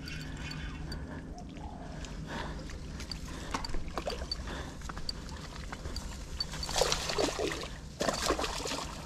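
Water sloshing against a small boat over a steady low hum, with scattered knocks and clicks. There are louder rustling bursts about seven and eight seconds in.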